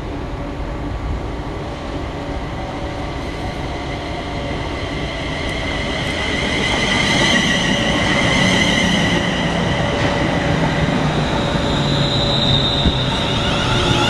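London Midland Class 350 Desiro electric multiple unit running into the platform and slowing, its traction motors giving a whine that slowly falls in pitch over the rumble of wheels on rail. It grows louder about halfway through as the train draws alongside.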